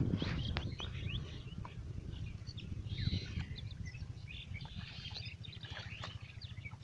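Small birds chirping and twittering over a low rumble that is loudest in the first second. Wet squelching and splashing come from hands working through mud and rotting water hyacinth in shallow water.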